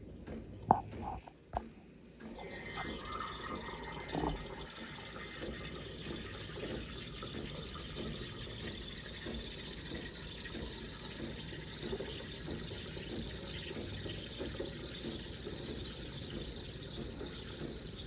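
Breville espresso machine's steam wand frothing milk in a glass mug: a steady hiss with gurgling that starts about two seconds in, after a couple of knocks.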